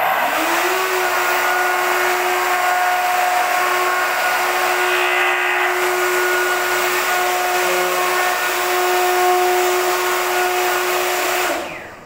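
Electric router starting up, its whine rising to full speed within about a second, then running steadily as it cuts into a wooden door, likely routing the recess for a door lock. Near the end the motor is switched off and the whine falls away as it spins down.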